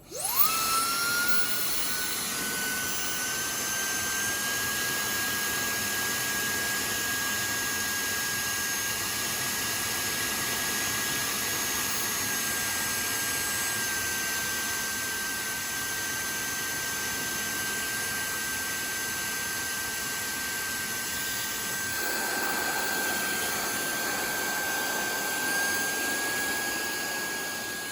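High-speed hair dryer with a 100,000 rpm motor switched on, spinning up with a fast rising whine, then running steadily: a high-pitched motor whine over the rush of air. The airflow noise grows rougher about 22 seconds in.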